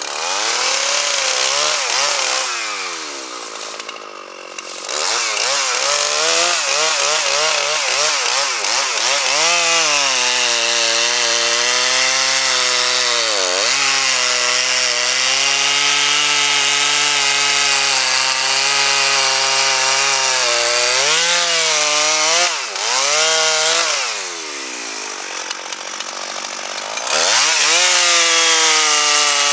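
Two-stroke chainsaw running at high revs and cutting through pine. Its engine note sags and recovers a few times, and near the end it drops back to a lower speed for a few seconds before revving up again.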